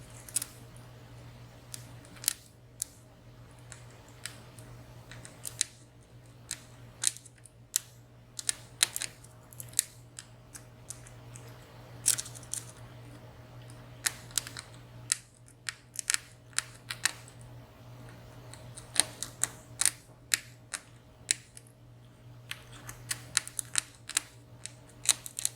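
Metal lock picks clicking inside the keyway of a WSW W10 high-security padlock: many short, sharp, irregular clicks as the pins and sliders are probed and set, over a steady low hum.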